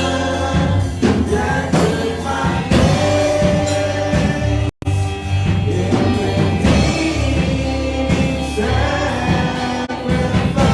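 Live contemporary worship music: a band with steady bass and sung vocals carrying the song's melody, with a brief dropout about halfway through.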